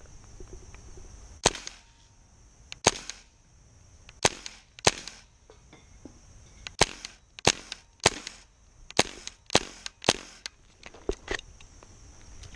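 Tippmann M4 HPA airsoft rifle firing single shots, about a dozen sharp pops at uneven gaps. The rifle misfeeds every so often.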